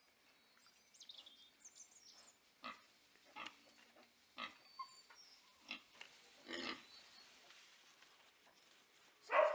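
Newborn piglets giving short grunts, about six spaced a second or so apart. A much louder sound breaks in at the very end.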